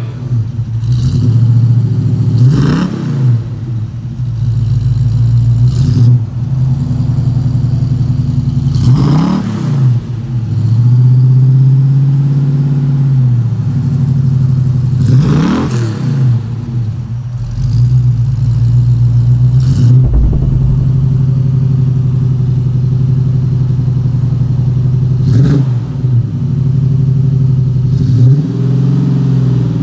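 A 1987 Jeep Grand Wagoneer's built 360 V8 idling steadily through a Magnaflow dual-in, single-out muffler and a 3-inch tailpipe, blipped several times in quick revs that rise and drop straight back to idle.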